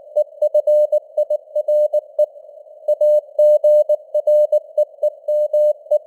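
Morse code (CW) at about 19 words per minute: a single steady beep keyed on and off in dots and dashes. Behind it sits a narrow band of hiss from simulated radio-band noise. A longer pause between words comes a little over two seconds in.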